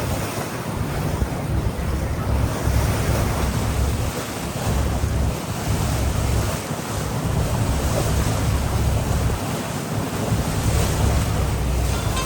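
Wind buffeting the microphone over the rumble and water rush of a river passenger boat under way, in uneven gusts.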